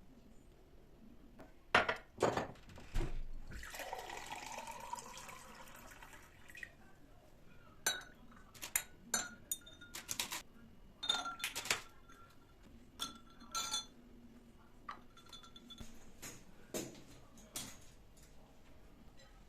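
Kitchen dishes and glassware being handled. A few knocks, then liquid pouring for about three seconds, then a long run of separate clinks, some of them ringing briefly.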